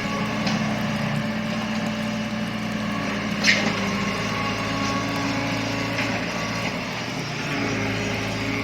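Excavator's diesel engine running steadily, with a single sharp knock about three and a half seconds in.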